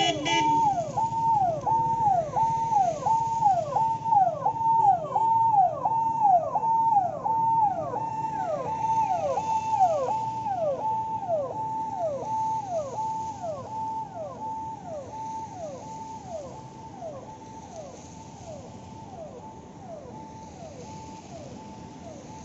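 Convoy vehicle siren sounding a repeating falling wail, about one and a half cycles a second, fading away over the second half as the cars pass. A car horn sounds briefly at the start.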